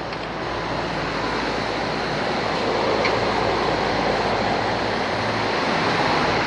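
Outdoor air conditioning condensing unit running: a steady rush of fan air over a low hum, with a faint click about three seconds in.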